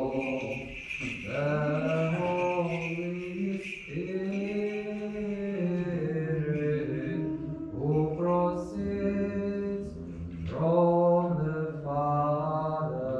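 Voices singing a slow Byzantine liturgical chant: the hymn to the Mother of God that answers the priest's commemoration of her in the Divine Liturgy. It is sung in long held notes, with short breaths between phrases about a second in, around four seconds in and after ten seconds.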